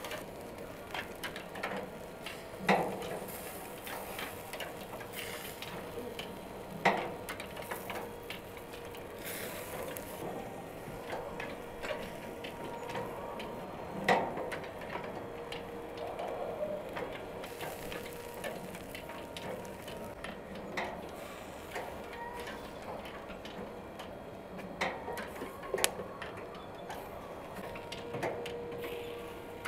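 Chain-and-sprocket drive of a motorised rotating-skewer grill running, the skewer gears turning with a steady ticking, clicking whir. Now and then a sharper clack stands out above it.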